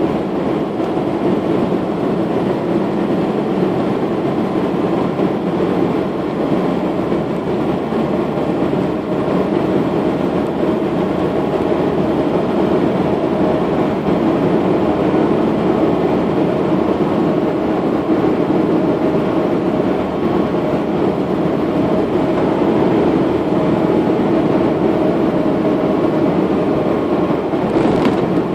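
Steady tyre rumble and engine noise of a car driving along an asphalt road, heard from inside the car. There is a short burst of noise near the end.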